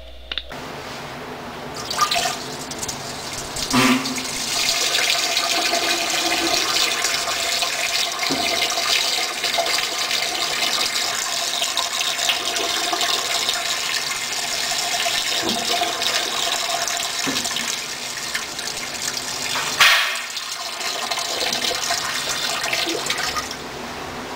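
Commercial flush-valve toilet flushing: a loud, steady rush of water, with a few sharp clunks, one about four seconds in and one near the end.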